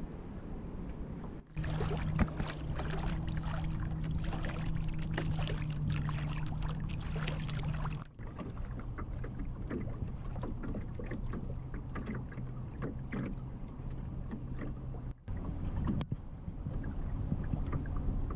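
Water lapping and splashing against the hull of a small timber sailing dinghy under way in light wind, with a steady low hum underneath. The sound breaks off and changes abruptly several times.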